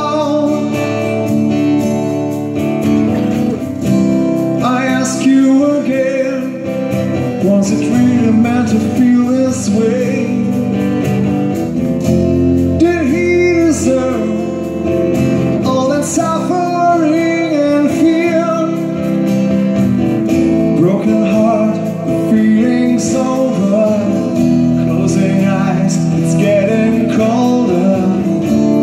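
Live acoustic rock band: strummed acoustic guitars over bass guitar and drums, with singing.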